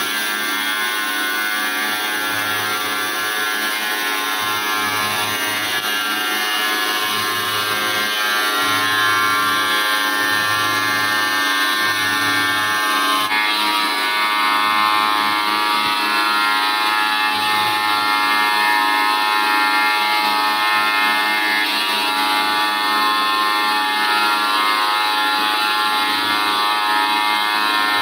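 Automatic CNC three-blade wet tile cutting machine running, its spindle motors and diamond blades giving a steady, many-toned whine as they cut porcelain tile under water spray. The tone changes abruptly about 13 seconds in.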